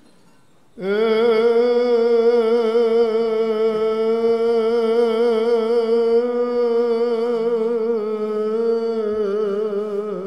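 A cantor chanting one long held note of Byzantine chant with a wavering vibrato. The note starts about a second in and dips and fades near the end.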